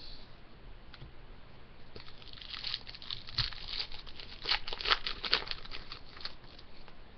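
Plastic wrapper of a hockey card pack crinkling and tearing as it is opened by hand, a dense run of crackles lasting a few seconds.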